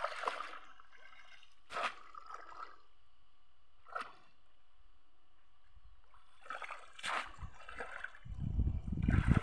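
Short splashes and sloshes of shallow muddy pond water as a person wades and plunges a cone-shaped net fishing trap into it, a few separate splashes a second or more apart. Near the end a loud low rumble of wind buffeting the microphone comes in and grows.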